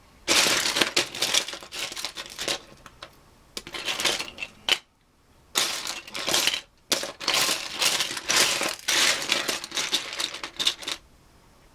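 Loose plastic Lego pieces clattering and rattling as hands rummage through a pile of them, in several spells with short pauses between.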